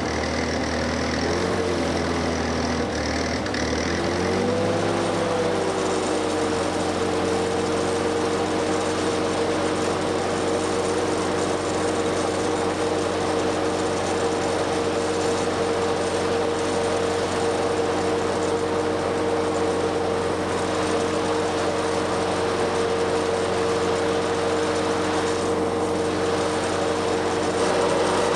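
A 1963 Lincoln SA-200 engine-driven welder running, with the crackle of a stick-welding arc over it for the first few seconds. The arc stops about four seconds in, the engine's note wavers as the welding load comes off, then the machine settles into a steady run.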